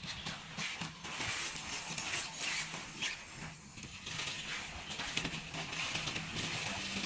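Large tent fabric rustling and swishing irregularly as it is pulled, lifted and spread out, over a faint low hum.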